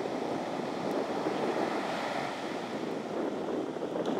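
Surf breaking and washing up the beach in a steady wash of noise.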